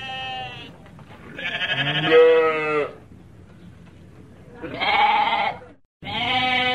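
Sheep bleating: four wavering calls a second or two apart, the second one the longest and loudest.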